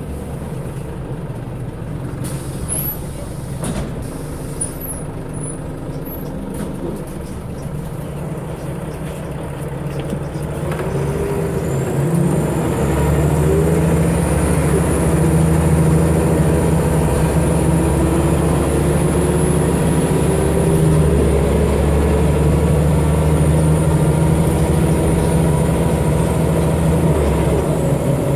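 Scania L94UB bus heard from inside, its diesel engine and ZF gearbox running. It is fairly quiet at first, with a short air-brake hiss a few seconds in. About eleven seconds in the engine grows much louder and stays working hard as the bus accelerates, its pitch gliding as it moves through the gears.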